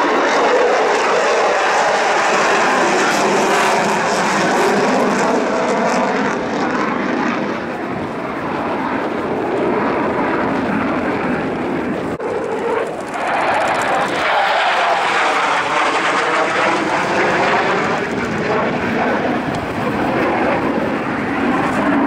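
Mitsubishi F-2 fighter's single General Electric F110 afterburning turbofan, a loud continuous jet roar as the aircraft maneuvers overhead. The roar swells and fades with its passes and takes on a sweeping, phasing sound in its latter part.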